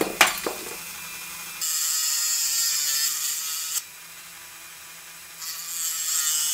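Dremel rotary tool with a cut-off wheel cutting axle slots into a diecast truck's base. The motor hums steadily, with two loud stretches of grinding of about two seconds each, the first starting a second and a half in, as the wheel bites into the part.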